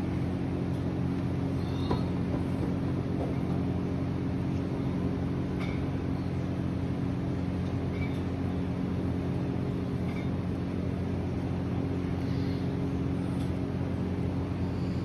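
Steady low mechanical hum, with a few faint light clicks every couple of seconds.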